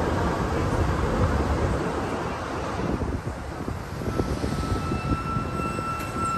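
Historic F-line electric streetcar running along the rails, a steady rumble with clattering knocks. About four seconds in, a steady high-pitched whine joins it.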